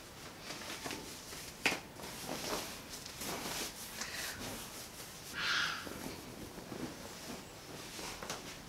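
Quiet rustling with scattered small clicks and taps, the sharpest about one and a half seconds in, and a short scrape about five and a half seconds in.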